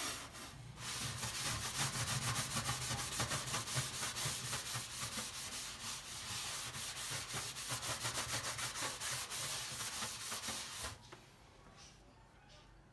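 Vigorous, rapid back-and-forth scrubbing, a scourer or brush rubbed hard over a surface, stroke after stroke. It stops abruptly about eleven seconds in.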